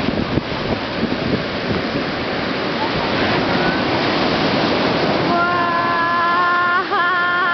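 Big sea waves breaking and washing in, a loud steady rush of water. About five seconds in, a person's high voice joins with long drawn-out calls.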